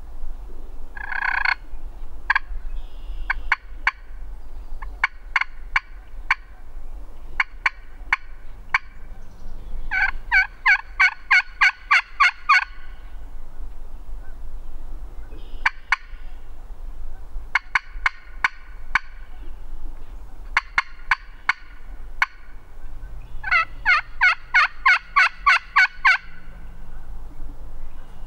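Friction pot turkey call worked with a wooden striker, imitating a hen turkey: scattered single sharp notes, and two fast runs of about ten loud yelps, one about ten seconds in and one near the end.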